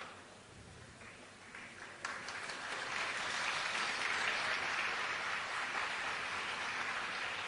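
A crowd applauding. A few scattered claps about two seconds in swell quickly into steady applause.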